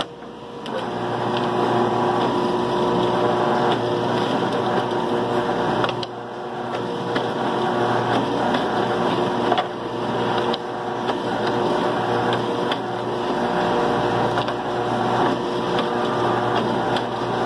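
A drill running steadily with a motor hum as holes are drilled in small parts, over steady shop machinery noise, with occasional short knocks from the parts being handled.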